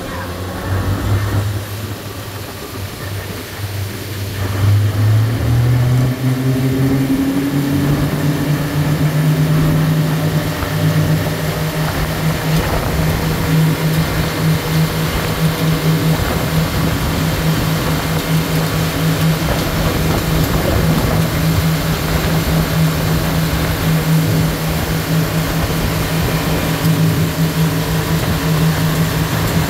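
Boat engine running under way. Its pitch climbs and it gets louder about five seconds in as the boat speeds up, then it holds a steady drone over a constant hiss of wind and water.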